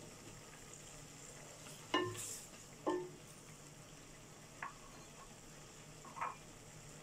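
A utensil knocking against the side of a cooking pot as vegetables are stirred: two sharp ringing clinks about a second apart, the first followed by a brief hiss, then two softer knocks.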